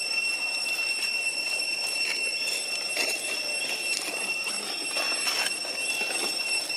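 Cicadas droning: one steady high-pitched whine with fainter overtones, unbroken throughout. Over it come scattered dry crackles and rustles of leaf litter stirred by a macaque walking.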